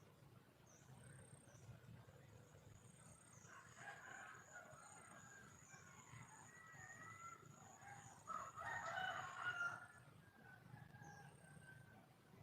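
Faint calling of a red junglefowl, the wild hen's mate call: a run of pitched, wavering calls from about four seconds in, loudest in a burst near the end, over a thin steady high whine and a few short high chirps.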